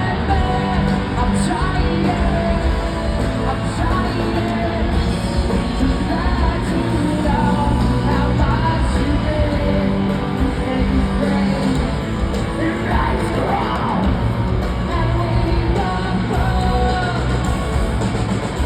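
Rock band playing live, with singing over loud, continuous guitars and drums.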